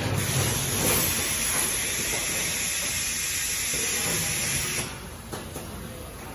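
Steady loud hiss from a high-frequency plastic welding chain machine, stopping abruptly about five seconds in.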